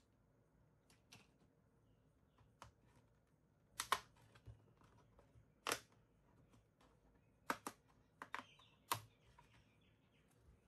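Light, sharp clicks and taps of hard plastic parts and small tools being handled on an opened laptop, a handful spread a second or two apart, with a faint short scrape about eight seconds in.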